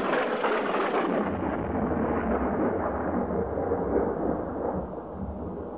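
Thunder rumbling, loud at first and fading gradually over about five seconds.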